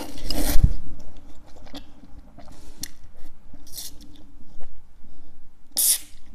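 Ramen noodles slurped in through the lips with a loud hiss, then chewed with small wet clicks. Two more hissing slurps follow, one about halfway through and one near the end.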